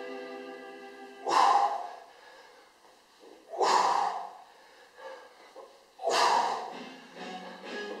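A man breathing out hard in a loud puff on each Hindu push-up, three times about two and a half seconds apart, over faint background music.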